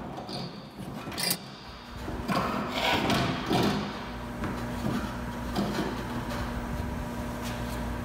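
Honda Ridgeline bedside panel being lifted off the truck: a sharp knock about a second in, then a couple of seconds of scraping and rubbing as the panel comes free of the bed frame, followed by a few lighter knocks as it is set down. A steady faint hum runs underneath.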